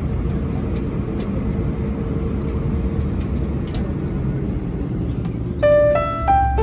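Steady low rumble of a vehicle in motion, heard from inside it. Piano music starts near the end.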